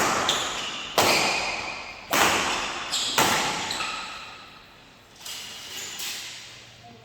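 Badminton rally: rackets striking a shuttlecock about once a second, each hit sharp and followed by a long echo in the hall. The first four hits are loud; the ones after about five seconds are lighter.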